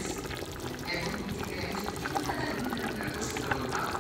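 Liquid sounds from a large pot of beef-and-cassava stew, a steady crackly bubbling and sloshing, with voices talking in the background.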